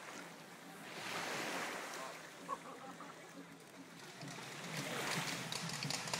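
Small waves washing in the shallows of a beach, swelling and easing in two surges, with one short knock midway.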